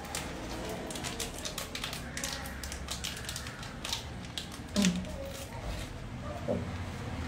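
Small clear plastic packet being crinkled and torn open by hand: a run of quick, sharp crackling rustles, thinning out after about four seconds, with one louder short sound just before the five-second mark.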